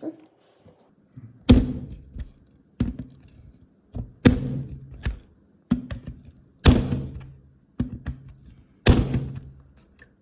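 A punch-down tool striking wires into the slots of a network patch panel: a series of sharp thunks, four of them loud, with lighter knocks between them, as the conductors are seated one after another.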